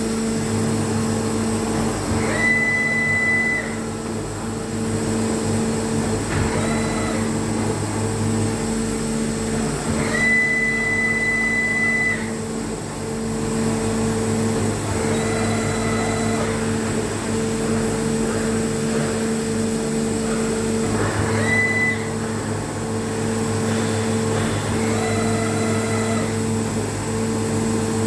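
CNC lathe tool turret running on a test bench, with a steady electric motor and pump hum throughout. Every few seconds it indexes, and three of these cycles carry a short, high whine.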